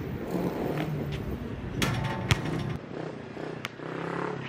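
Road traffic running steadily, with a few sharp knocks scattered through.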